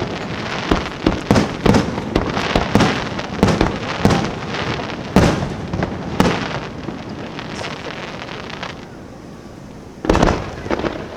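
Aerial fireworks bursting in rapid succession, a barrage of booms and crackling reports for about six seconds that then thins out. After a quieter stretch, one more loud boom comes near the end.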